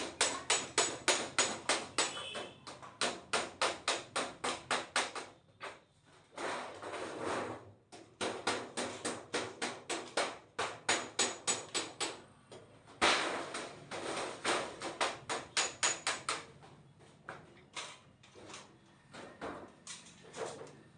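Rapid, evenly spaced tapping or hammer strikes, about four a second, in runs of several seconds, with short pauses and brief rougher scraping stretches between the runs.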